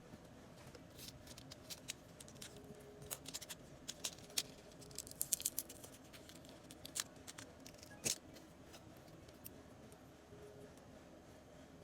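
Irregular small, sharp clicks and taps of hand tools working on a phone's parts, thickest in the middle, with one louder click about eight seconds in.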